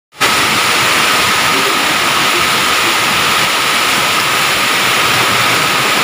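Heavy downpour of rain and hail in a storm, a steady loud hiss of pouring water.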